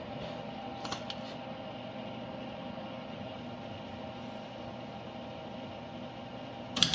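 A steady mechanical hum with a couple of faint clicks about a second in. At the very end, a MIG welder strikes its arc with a loud, sudden crackle as a tack weld goes onto the sheet-metal fuel filler box.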